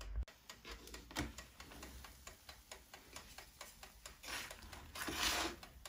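Faint, rapid, even ticking, about five ticks a second, with two soft rustling swells near the end.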